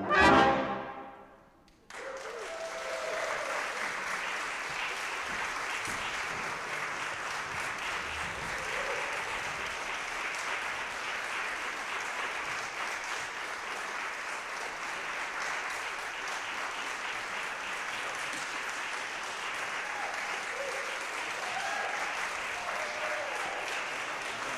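A brass ensemble of trumpets, trombones and tubas holds its final chord, which rings out and dies away into about a second of silence. Then the audience bursts into steady applause that carries on.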